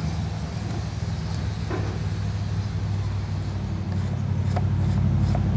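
Steady low engine hum in the background, with a few faint clicks of hand tools on metal.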